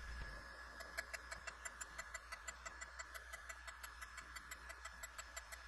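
Grinding wheel making a light finishing pass on a V parallel: a steady machine hum with an even, light ticking about five times a second.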